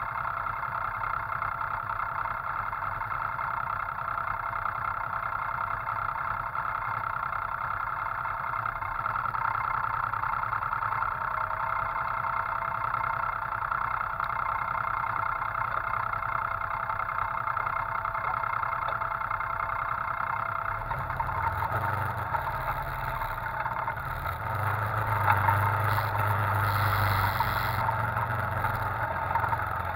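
Off-road vehicle engine idling steadily. About twenty seconds in it gets louder and rougher as the vehicle moves off over a rutted dirt trail.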